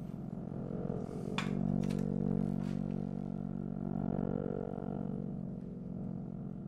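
Low sustained synthesizer drone of several held tones, with a few light clicks of small objects handled on a table about one and a half to three seconds in.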